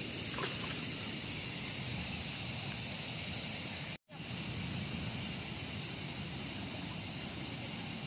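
Steady wash of ocean waves breaking on a rocky shore, cutting out for an instant about halfway through.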